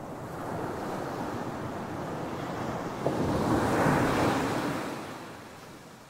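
Ocean surf: a shore-break wave dumping onto a sandy beach. The rush of water builds, crashes loudest about three to four seconds in with a sharp slap as it breaks, then washes out and fades away.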